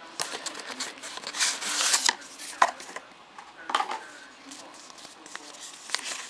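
Rustling and crinkling of a Canon E1 hand strap's packaging being opened and handled, with a string of sharp clicks and taps and a louder rustling burst about a second and a half in.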